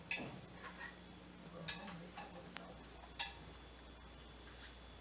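A handful of separate sharp metallic clicks and clinks, about five in all, the loudest about three seconds in.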